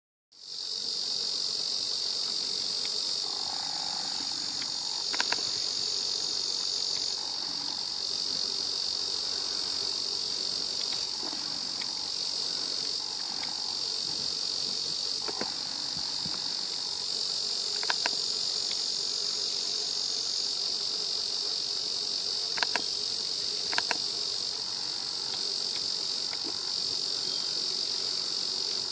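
Dense, steady chorus of summer insects, an even high-pitched buzz, with a few brief sharp clicks scattered through it.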